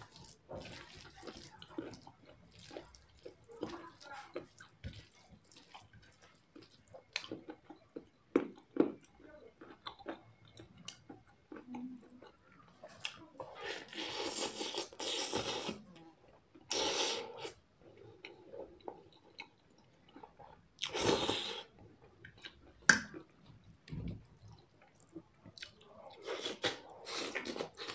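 Close-up mouth sounds of eating: chewing and slurping spicy instant noodles, with a stretch of sucking noodles in about halfway through, then crunching bites of a raw cabbage leaf near the end.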